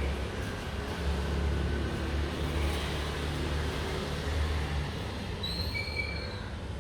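Steady low rumble, like road traffic, with a single short whistled bird call about five and a half seconds in.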